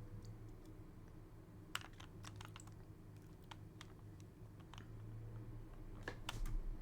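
Faint plastic clicks of an original Rubik's Cube's layers being turned, in two quick runs, about two seconds in and again near the end, over a steady low hum.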